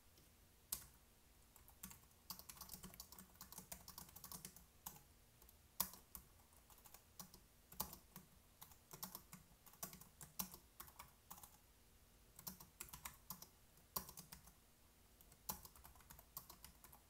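Computer keyboard typing: quick irregular runs of faint keystroke clicks with short pauses between them.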